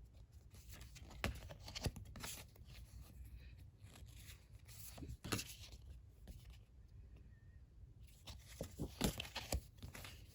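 Packaging and paper goods being handled: irregular rustling and crinkling with a few sharp clicks and taps, in bursts around a second or two in, about five seconds in and again near the end.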